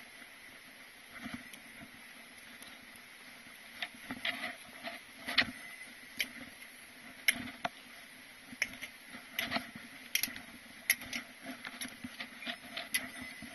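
A hiker's footsteps crunching on a snowy mountain trail, irregular steps about one to two a second, a few landing harder than the rest.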